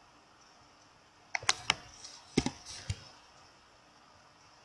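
About half a dozen sharp clicks of a computer keyboard and mouse in a quick cluster, starting about a second and a half in and stopping around the three-second mark.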